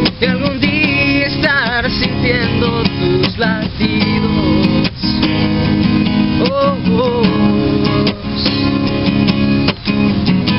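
Acoustic guitar strummed steadily, with a young male voice singing a few long wavering notes.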